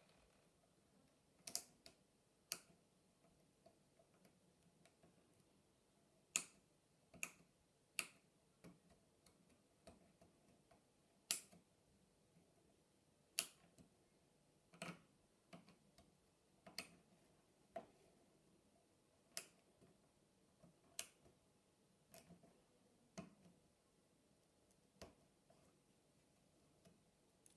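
Small hand chisel cutting notches in a thin wooden kumiko strip: about twenty sharp, crisp clicks at irregular intervals, roughly one a second, with near quiet between them.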